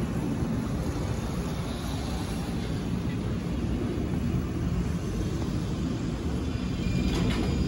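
Steady low rumble of an Airbus A319-132's turbofan engines, heard from the ground as the airliner flies high overhead.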